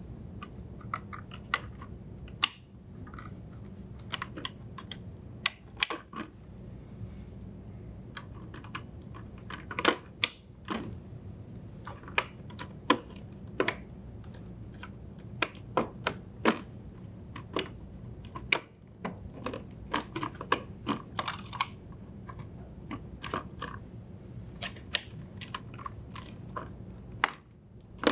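Plastic wire-harness connectors being pushed into and seated on an LG refrigerator's main control board: an irregular scatter of sharp clicks and snaps, dozens in all, with small pauses between.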